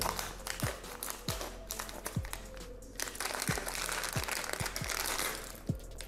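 Clear plastic packaging bag crinkling as it is cut open with scissors and pulled apart, over background music.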